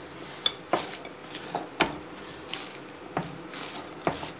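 Hands kneading soft maida dough in a glass bowl: irregular short knocks and squishes as the dough is pressed and pushed against the glass.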